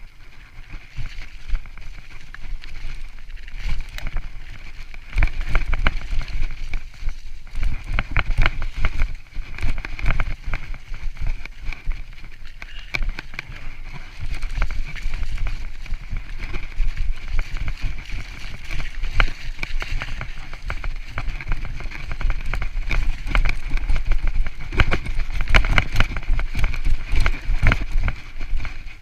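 Mountain bike descending a rough dirt trail: rushing wind on the body-mounted camera, tyre noise, and the bike knocking and rattling over bumps. It gets louder a few seconds in and again about halfway, with the heaviest rattling near the end.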